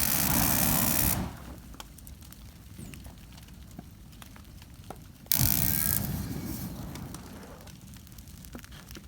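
Flamethrower firing twice: a loud rushing blast just over a second long at the start, and a second one about five seconds in that fades away over a couple of seconds as the fuel runs low. A trash fire crackles faintly in between.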